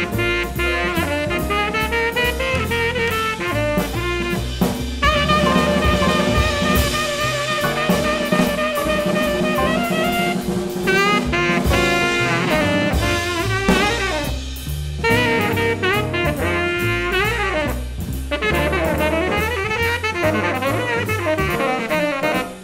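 Small jazz combo playing: a saxophone melody line over drum kit with cymbals and an upright bass.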